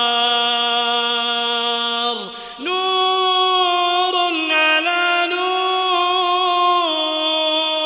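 A male voice chanting Quranic recitation in a melodic style, holding long notes. It breaks a little over two seconds in and comes back on a higher held note with small ornamented turns, then steps down slightly near the end.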